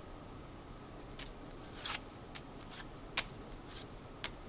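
Tarot cards of thick, cardboard-like stock being handled and passed from hand to hand: about five short, sharp card clicks and soft papery swishes, spaced irregularly.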